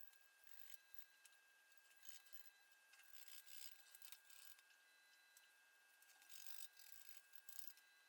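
Near silence: faint scratchy rustling comes and goes over a steady high-pitched whine.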